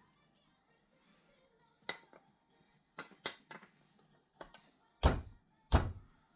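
A series of irregular knocks and clunks, getting heavier toward the end, where the two loudest thuds fall about five and six seconds in.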